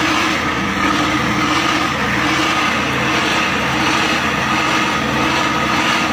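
T-62 tank's V-12 diesel engine running loud and steady.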